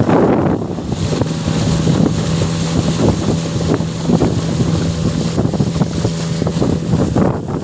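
Boat motor running at a steady pitch, with wind buffeting the microphone.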